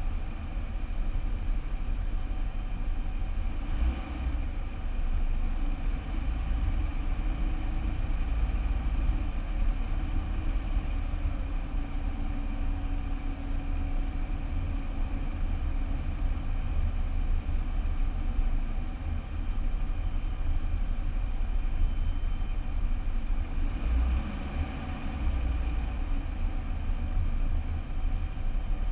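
Car driving, a steady low engine and road rumble picked up by a camera mounted on the car.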